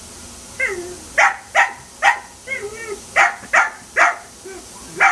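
Dachshund barking in short, sharp barks, about seven in all starting about a second in, with higher wavering yips and whines between them.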